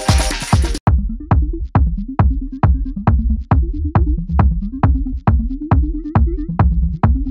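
Electronic dance music with a steady kick drum about twice a second over a bassline. About a second in, the fuller, brighter layers drop out, leaving mostly the kick and bass.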